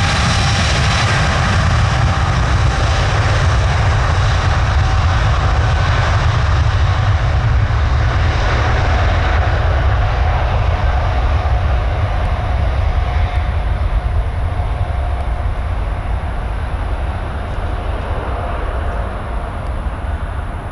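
Jet airliner's engines at high power, a loud steady rumble and rush with a faint whine through it, growing duller and fainter over the second half as the aircraft moves away.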